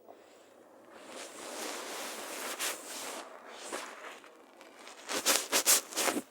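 Rustling and scraping noises that build up about a second in, then a quick run of sharp, loud noises near the end.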